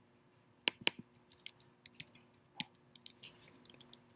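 Computer keyboard keystrokes and mouse clicks: a scattered run of sharp, light clicks, the loudest about a second in and again halfway through, over a faint steady hum.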